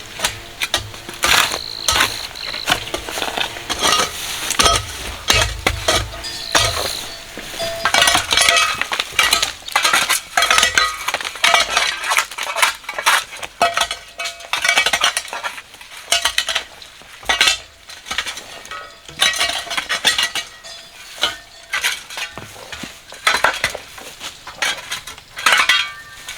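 Metal clinking and scraping in irregular strokes, several a second, like a metal tool working against a hard or gritty surface.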